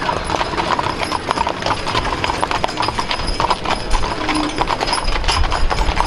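Shod hooves of a team of several mules walking on asphalt: a rapid, overlapping clip-clop.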